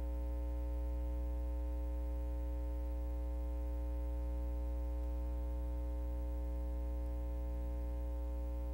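Steady electrical mains hum with a stack of overtones and a faint hiss, unchanging throughout.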